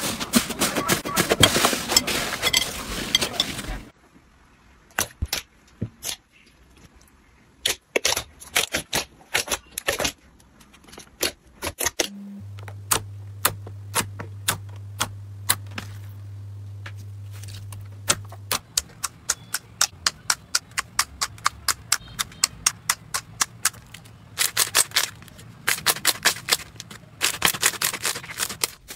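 Hands squishing, pressing and poking slime: a dense crackling squish at first, then a long run of sharp pops and clicks as fingers press into glossy slime, and dense squishy bursts again near the end. A low steady hum runs for several seconds in the middle.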